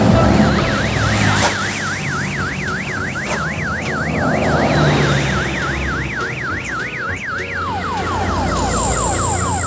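Electronic vehicle siren in a fast yelp, its pitch rising and falling about three times a second, switching near the end to quick repeated downward chirps; it is a sound effect added over the footage. Underneath, the low rumble of road traffic as a large bus passes.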